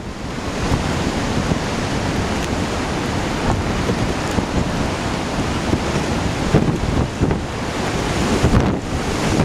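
Hurricane-driven surf breaking heavily in a continuous roar, with strong wind buffeting the microphone.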